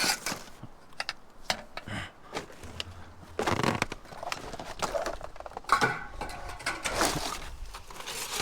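Rummaging through loose plastic and wire scraps in a bin: crinkling and rustling with scattered clicks and knocks, in a few longer, louder bursts past the middle.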